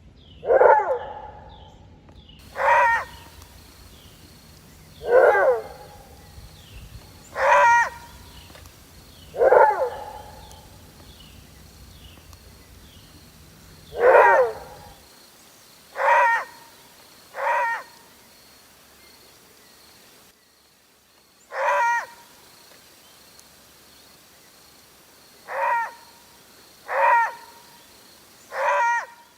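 Maned wolf giving its roar-bark: about a dozen short, deep barks, each under half a second, repeated every two seconds or so with a few longer gaps.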